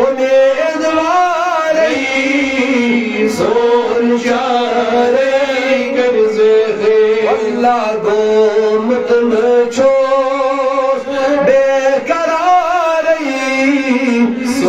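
A man chanting in a melodic, singing style into a microphone, holding long notes with wavering, ornamented turns of pitch.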